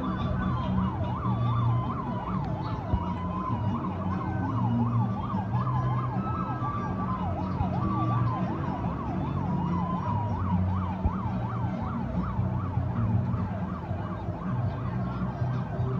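Electronic siren sounding a fast yelp, its pitch rising and falling about four times a second, with a second yelp overlapping it in the latter half. Underneath runs a low steady drone.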